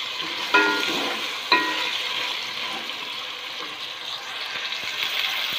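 Sliced potatoes sizzling in hot oil in an aluminium pot, stirred with a wooden spatula. Two ringing clinks of the spatula against the pot come about a second apart near the start.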